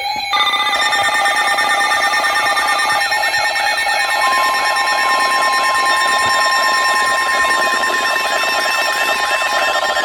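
Weather radio emergency alert tones for a severe thunderstorm warning: layered electronic alarm tones with fast repeating warbling beeps. About four seconds in, a single steady tone near 1 kHz joins them, the Weather Radio warning alert tone that comes before the voice message.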